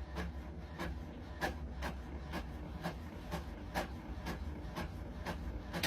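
Regular clicking or tapping, about two clicks a second, over a low steady hum.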